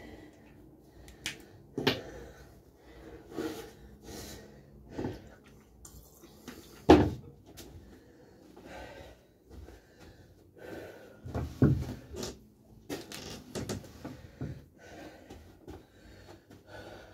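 Irregular knocks and thumps in a small room, the loudest a sharp knock about seven seconds in, with a man's heavy breathing as he recovers between exercise sets.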